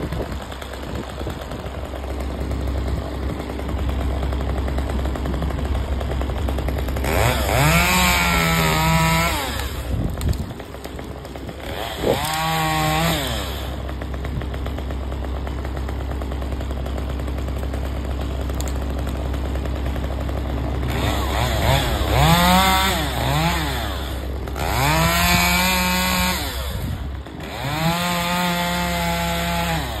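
Chainsaw idling and revved to full throttle five times in bursts of one to two seconds, its pitch rising, holding steady, then falling back to idle.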